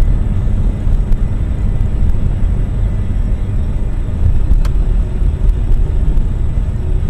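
Car driving, heard from inside the cabin: steady low engine and road rumble, with a faint click about four and a half seconds in.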